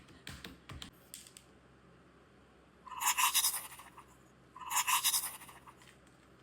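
Two crunchy bites into a crisp grilled bread basket, each about half a second long and a second and a half apart, with a few faint clicks in the first second.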